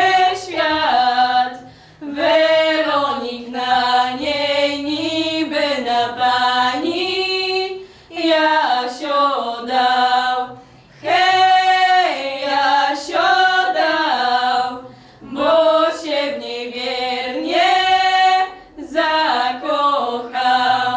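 Three young women singing a cappella together, sustained sung phrases of a few seconds each separated by short breaths, with no instruments; the song ends near the end.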